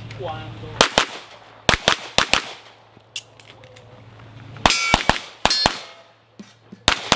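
Handgun shots fired in quick pairs and short strings, about a dozen cracks in all. After the strings around five seconds in and near the end, a metallic ringing hangs on, like steel targets being hit.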